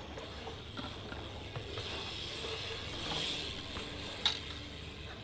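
BMX bike rolling across skatepark concrete: tyre hiss that swells about halfway through, with light scattered ticks. One sharp knock comes about four seconds in.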